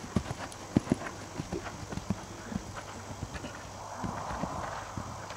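Hoofbeats of a gelding cantering on a sand arena surface: a quick, rolling run of dull thuds, stride after stride.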